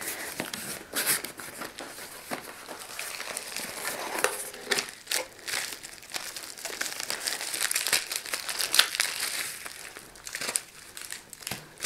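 Plastic bubble-wrap bag crinkling and rustling as it is handled and pulled out of a small cardboard box, with many small crackles and clicks.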